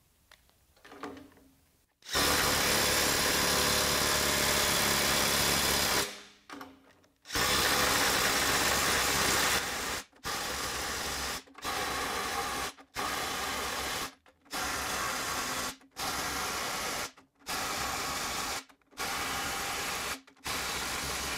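Ryobi One+ HP brushless impact driver (PBLID01) hammering nuts tight, one after another. It sounds first in two continuous runs of a few seconds each. Then come eight short, rapid-fire bursts about a second apart, played back at four times speed.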